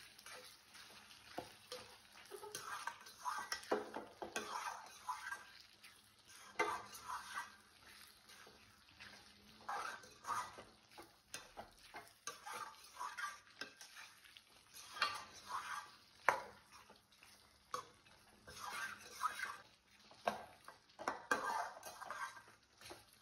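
A metal spoon stirring and scraping thick chicken gravy around a metal kadai in irregular strokes, with sharp clinks of the spoon against the pan. The coconut paste has just been added and is being mixed in.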